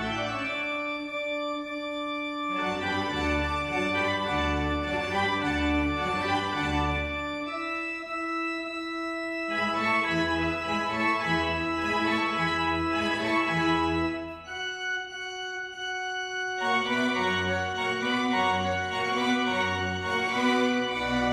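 Church organ music: sustained chords over a bass line that moves in slow, even steps, in phrases with short breaks where only the upper chord is held.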